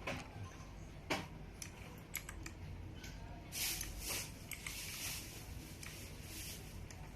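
Philips SPK8401 mechanical keyboard with green switches: single key clicks about a second apart, then a quick run of several clicks, followed by a few seconds of scratchy handling noise.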